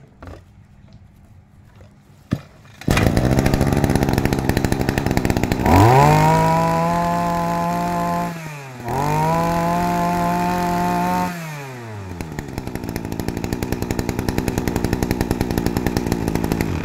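Ryobi 26 two-stroke brush cutter engine catching about three seconds in and idling. It is then revved up twice, each time held high for two to three seconds before dropping back to idle, and it is shut off at the very end. It runs crisp and very stable.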